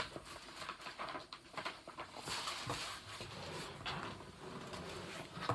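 Faint scattered rustles and light knocks of items and the phone being handled close to the microphone.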